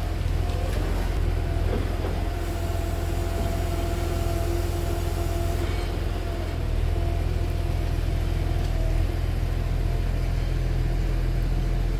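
Motor vehicle running: a steady low rumble with a constant drone above it, rising slightly in level about halfway through.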